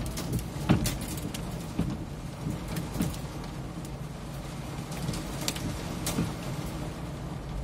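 Heavy hailstorm rain pattering on a van's roof and windshield, heard from inside the cab, with a low steady hum underneath. Scattered sharp knocks of single heavy impacts stand out, several in the first second and a few more later.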